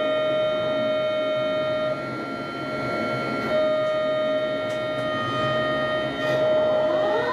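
MacGregor ship's deck crane machinery whining steadily in several fixed tones over a low rumble, heard from the operator's cab; near the end a rising whine comes in as the crane is worked.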